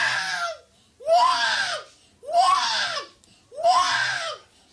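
Young child crying: four cries about a second apart, each rising and then falling in pitch, with short breaths between.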